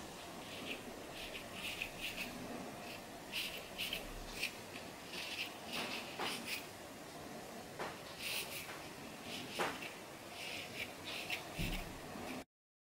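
Metal comb scraping through hair against the scalp in short, irregular scratching strokes, loosening dandruff flakes. The sound cuts out briefly just before the end.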